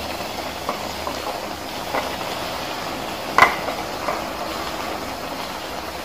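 Meatballs and chili paste sizzling steadily in a wok under a heap of fresh greens, with a few sharp clacks of the spatula against the pan; the loudest comes a little past halfway.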